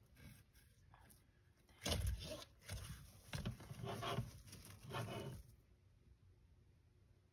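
Several short, faint bursts of scraping and rustling, close together over a few seconds in the middle, then quiet.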